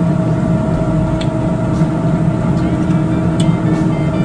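Steady loud drone of a commercial restaurant kitchen's running equipment around a lit gas range, with a fixed hum and a low rumble. A few light clinks of a fork and spoon on a china plate come about a second in and again past three seconds.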